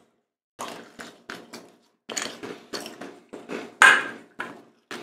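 Crunchy cheddar Goldfish crackers being chewed, a run of irregular crisp crunches.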